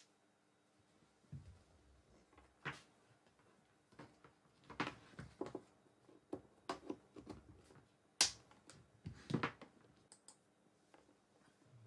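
Scattered clicks and light knocks of soldering-station parts being handled on a bench: about a dozen irregular sharp taps, the loudest about eight seconds in.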